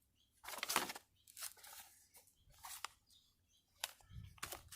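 Paper rustling and crinkling in short, irregular bursts as a folded instruction sheet is handled and leafed through.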